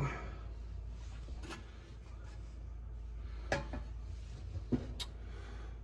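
A few light clicks and taps from handling the dryer's sheet-metal heater housing and parts, scattered over a steady low hum.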